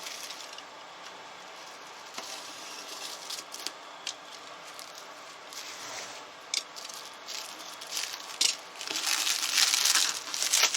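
Crinkling and rustling of handled packaging, with scattered clicks and knocks, growing much louder and denser about nine seconds in.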